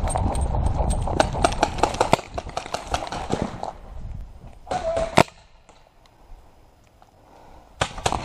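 A paintball player running in the field: quick footfalls, gear jostling and a low rumble from the jolting head-worn camera for about four seconds. Then the running stops and it goes much quieter, broken by a short burst ending in one loud sharp crack about five seconds in and a couple of clicks near the end.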